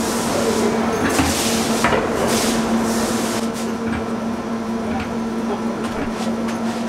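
A long-handled tool scraping and knocking against subway track ballast and rails in short strokes, most of them in the first half, with the sharpest knocks about one and two seconds in. A steady low hum runs underneath.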